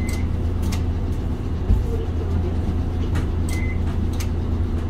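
Mitsubishi Fuso Aerostar city bus's diesel engine idling with a steady low hum, heard inside the cabin, with a few short sharp clicks scattered through.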